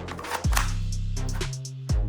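Electronic background music with a steady beat, deep sliding bass-drum hits about half a second in and again near the end.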